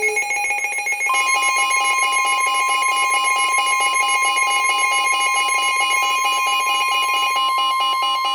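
Emergency alert tones for a severe thunderstorm warning. A fast, repeating electronic alarm pattern is joined about a second in by a steady single-pitch warning tone, and both hold unbroken.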